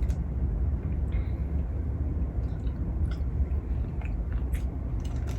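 A person chewing and biting into shrimp close to the microphone, with a few small wet clicks. A steady low hum sits underneath.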